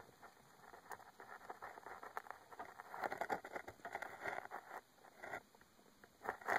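Scattered scraping, scratching and small crackling taps, as the phone on its pole brushes against roots and soil inside a hole; the taps bunch up about halfway through and again near the end.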